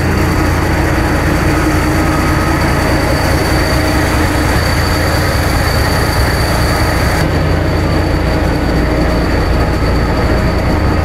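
Diesel locomotive engine running, a steady low drone with a thin, steady high whine above it.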